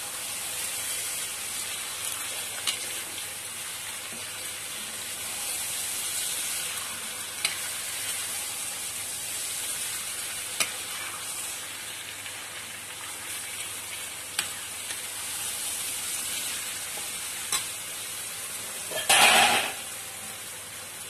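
Jackfruit pieces sizzling in hot mustard-oil masala in a kadhai while being stirred with a perforated metal spatula. The spatula clicks against the pan every few seconds. Near the end there is one louder rush of scraping noise, under a second long.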